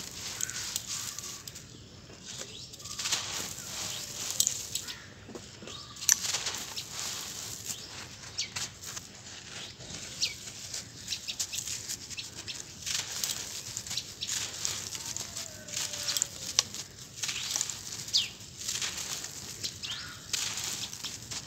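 Hands crushing and crumbling clumps of dry sand-cement, a dense, irregular run of gritty crunches and crackles with grains and dust pouring through the fingers.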